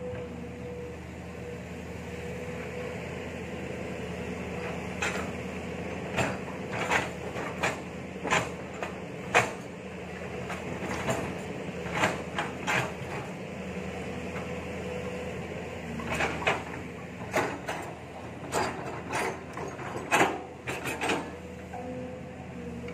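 Long-arm excavator's engine and hydraulics running steadily while its bucket digs into clay soil, with a string of sharp knocks and clunks from about five seconds in and another cluster from about sixteen seconds in.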